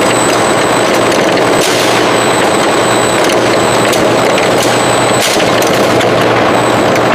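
Loud, steady machinery running, with a thin high whine and a few sharp clicks.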